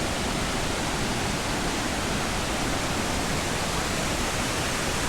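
Steady rush of falling and flowing river water in the gorge, an even hiss with no change in level.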